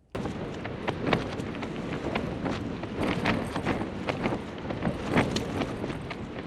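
Hilleberg Soulo tent's fabric buffeted by gale-force wind and rain: a steady rush of wind with a dense run of irregular sharp slaps and taps from the flapping flysheet and rain hitting it.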